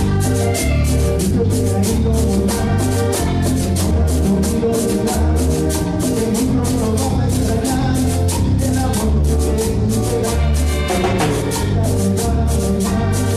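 Latin dance music played by a band, with conga drum, bass and a fast, even percussion tick driving the rhythm. No clear vocal line.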